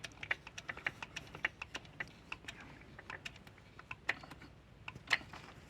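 Crimping tool being worked to crimp a lug onto a 300 sq mm power cable, giving irregular sharp clicks and ticks, a few a second.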